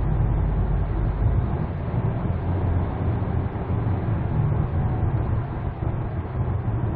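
Steady low rumble of a Hyundai Santa Fe DM's engine and tyre noise heard inside the cabin while driving on the highway. The deepest part of the drone eases off about a second and a half in.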